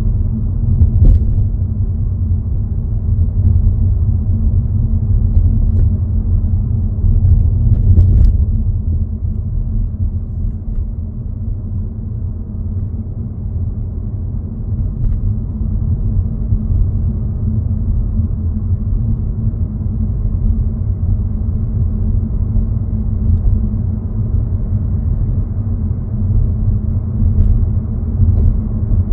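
Car driving on the road, heard from inside the cabin: a steady low rumble of road and engine noise, with a couple of brief knocks about a second in and about eight seconds in.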